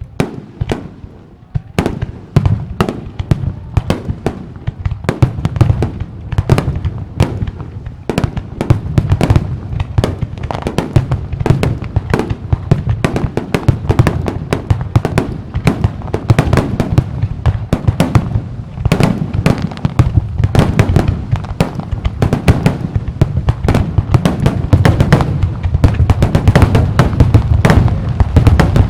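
Fireworks display: a rapid, continuous barrage of bursting shells and sharp bangs over a low rumble, growing denser and louder toward the end.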